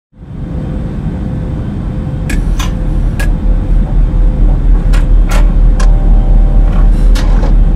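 Loud, deep rumble that swells in over the first second or two, with a steady hum under it and scattered sharp crackles.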